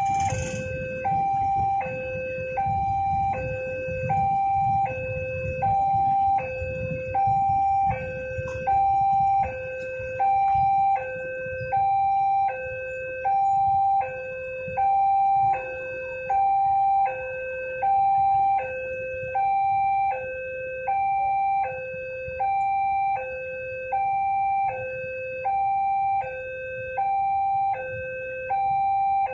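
Railway level-crossing warning alarm sounding a steady two-tone signal, a higher tone and a lower tone alternating about a second each. It warns that a train is approaching the crossing.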